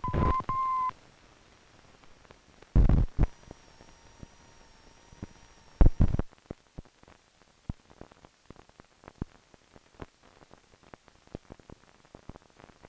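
Run-out of an old 16 mm film's optical soundtrack: a steady high beep for just under a second at the start, loud thumps about three and six seconds in, then a scatter of clicks and pops from dirt and scratches on the blank leader.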